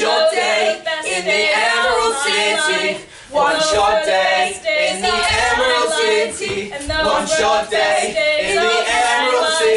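Unaccompanied singing by a woman's and a man's voice together, breaking off briefly about three seconds in.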